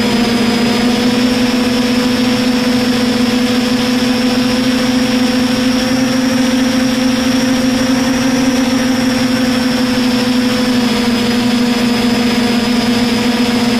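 DJI F450 quadcopter's brushless motors and propellers buzzing steadily in flight, heard from the camera mounted on the airframe, over a rush of wind noise. The pitch rises slightly about eight seconds in and settles back a little lower near eleven seconds.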